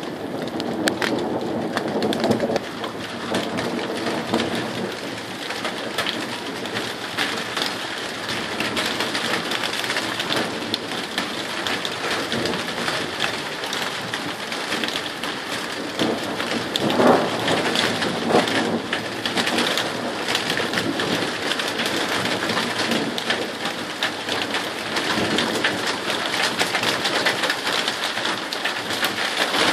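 Steady rain pattering down during a thunderstorm, with thunder rumbling.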